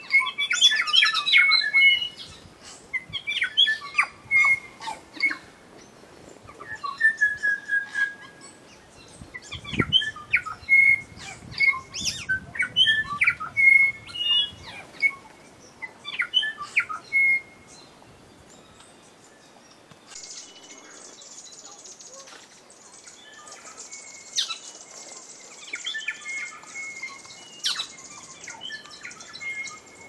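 Forest birds singing: a busy run of varied clear whistled notes, clicks and short trills, thinning out past the middle to sparser calls over a steady high hiss.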